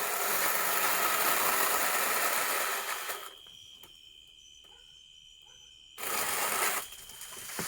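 Milwaukee battery-powered pole saw running and cutting through a hanging hackberry limb. Its chain, nicked on high-tensile wire, chatters. It runs for about three and a half seconds, stops, then gives a second short burst about six seconds in.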